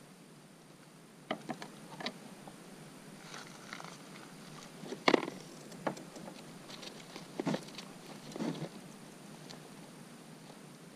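Gear being handled on a plastic kayak's deck as a plastic soda bottle is worked under the bungee cords: a handful of irregular short knocks and taps, the loudest about five seconds in.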